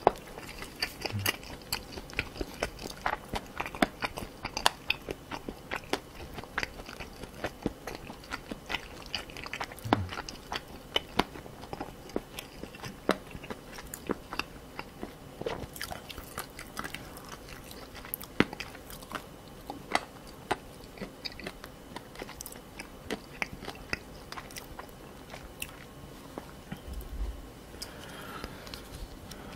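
Close-miked chewing of spicy stir-fried pork cartilage (odolppyeo): the cartilage gives many sharp, irregular crunches amid wet mouth sounds.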